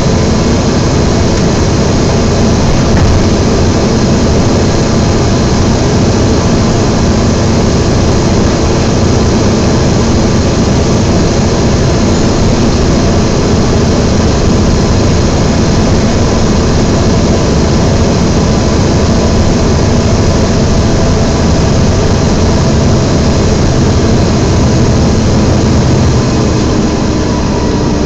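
Interior of a Volvo B7TL double-decker bus under way, its engine cooling fan making a loud, steady vacuum-cleaner-like whine (the "hoover") over the engine and road noise. Near the end the sound eases slightly with a tone sliding down in pitch.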